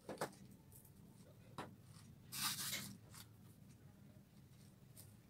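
Artificial flower stems and foliage rustling and clicking as they are picked through in a plastic tray: a few short clicks, then one longer rustle about two and a half seconds in.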